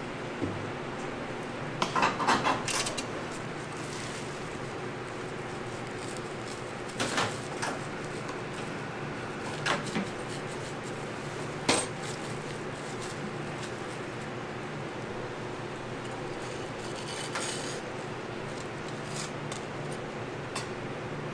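Metal tongs, scissors and utensils clinking and clattering against a wire cooling rack: a burst of clatter about two seconds in, then a few single clinks, over a steady hum.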